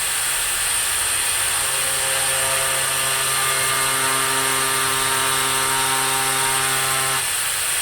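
4-inch angle grinder fitted with an oscillating multi-tool adapter, running steadily and cutting into wood, a steady high whine over the motor's hum. The lower tones shift slightly about seven seconds in.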